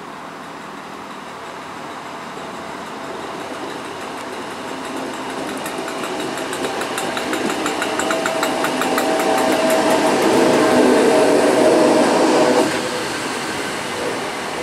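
ScotRail Class 318 electric multiple unit approaching and running in along the platform, growing louder. A fast run of clicks from the wheels on the rails is followed by a steady electric hum. The sound peaks shortly before the end and then drops suddenly.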